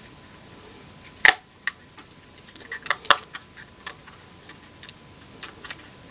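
Plastic back cover of an SJ1000 action camera clicking as it is pried off with fingernails: a sharp snap about a second in, a second strong snap about three seconds in, and scattered smaller clicks between and after.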